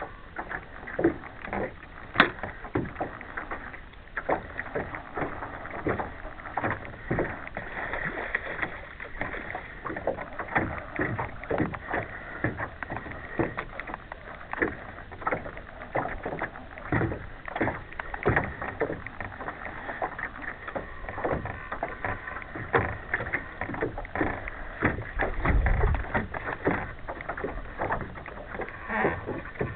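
Small waves slapping against the hull of a small boat in a continuous run of irregular knocks and splashes, with a deeper thump about twenty-five seconds in.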